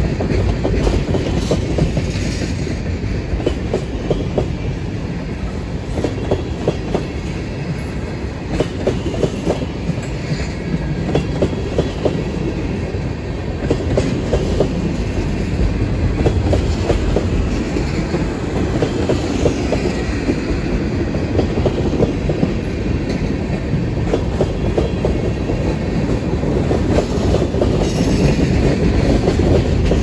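Freight train of tank cars rolling steadily past close by: a continuous rumble of steel wheels on rail, with rapid clicking as the wheels run over rail joints.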